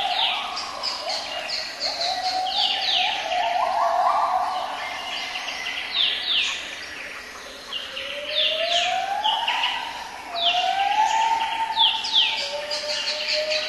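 Many birds calling together: repeated short whistles sweeping downward in pitch, over which come several long, lower whistles that rise and then hold, the clearest starting about eight and ten seconds in.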